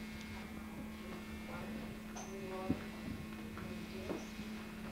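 A steady low electrical hum, with faint voices in the background and a single sharp click a little before the three-second mark.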